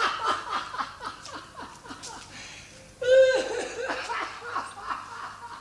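Laughing in quick, repeated ha-ha bursts, breaking out again loudly about three seconds in and tailing off near the end.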